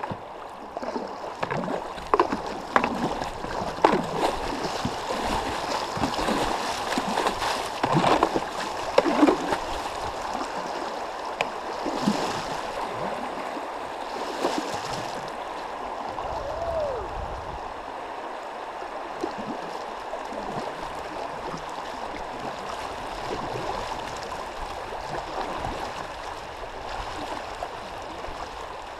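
Class 2 river water rushing and splashing around a kayak, with short splashes of paddle strokes over the first ten seconds or so, easing into a steadier rush of current.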